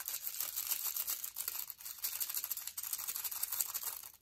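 Tiny plastic diamond-painting drills rattling as they are shaken out of a small plastic packet into a plastic pot and tray: a continuous dense rattle of many small clicks, with the packet rustling.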